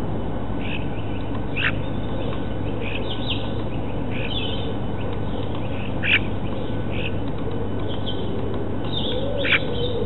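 Small birds chirping and calling in the background over a steady hiss and hum from the feeder camera's microphone. Three sharp, short sounds stand out: one near the start, one in the middle and one near the end.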